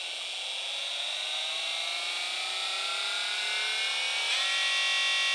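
72 V 3000 W brushless DC motor spinning up with no load in its controller's low-speed setting. Its whine climbs steadily in pitch, then levels off at a steady top-speed whine about four seconds in.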